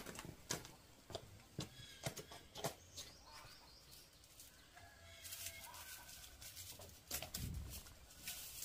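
Scattered light knocks and rustles as banana bunches are handled and hung from a wooden beam, with birds calling in the background twice.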